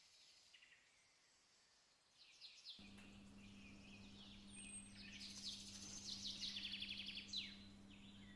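Faint birds chirping and trilling in short falling calls and quick trills, over a low steady hum, starting a couple of seconds in after near silence.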